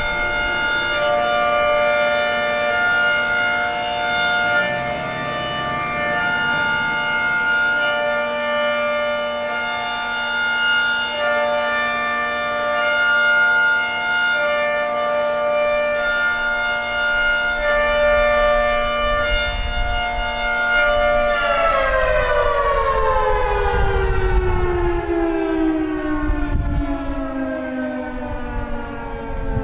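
Federal Signal 3T22A rotating outdoor warning siren sounding its Hi-Lo signal, alternating between a higher and a lower chord. About three-quarters of the way through it stops alternating and winds down, its pitch falling steadily as the rotor coasts, marking the end of a Hi-Lo cycle. A low rumble sounds underneath during the wind-down.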